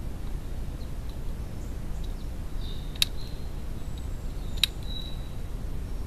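Two sharp clicks about a second and a half apart, a wood pigeon's beak pecking seed against a plastic feeder dish, over a steady low rumble of background noise.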